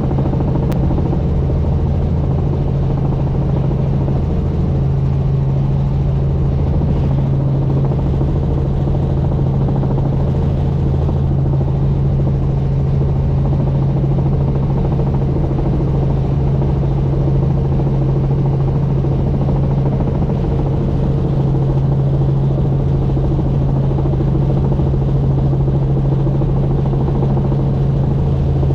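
Helicopter in flight: the steady, loud drone of its engine and rotors, with a constant low hum that stays level throughout.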